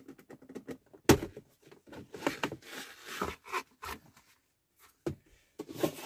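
Plastic centre-console trim around a Mazda MX-5 NC's handbrake boot being pulled up by hand. A sharp snap comes about a second in as it comes loose, then plastic scrapes and rattles, with a couple more clicks near the end.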